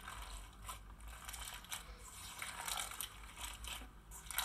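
Quiet, irregular crackling crunches of a clear crunchy slime packed with small beads, squeezed and pressed by hand.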